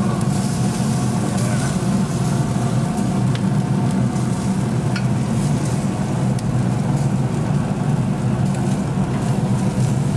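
Thick New York strip steaks sizzling on a hot grill grate, a steady crackling hiss over a steady low hum. Two light clicks from metal tongs come about three and five seconds in, as the steaks are turned.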